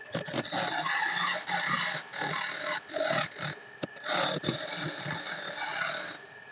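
Hand tool scraping the spinning wooden lamp base on a belt-driven wood lathe, a rasping hiss in several passes of about half a second to two seconds, the longest near the end. A steady high whine from the running lathe goes on underneath.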